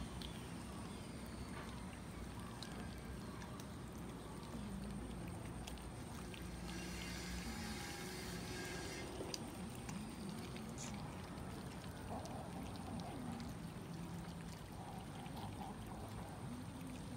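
A crowd of cats eating raw minced chicken: wet chewing and smacking with many small clicks of teeth on meat.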